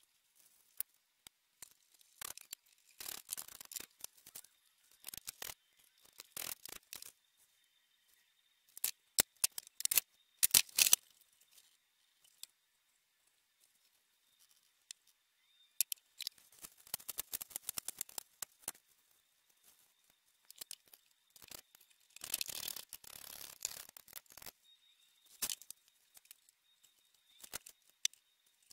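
Intermittent clicks, taps and rustling from assembling a flat-pack particleboard desk by hand: panels and small hardware being handled and set down on cardboard, with quiet gaps between.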